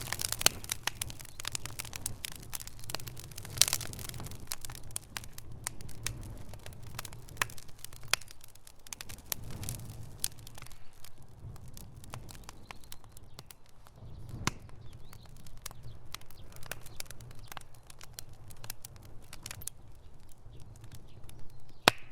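Fire crackling: a steady stream of irregular snaps and pops over a low rumble, with a few louder pops, the loudest near the end.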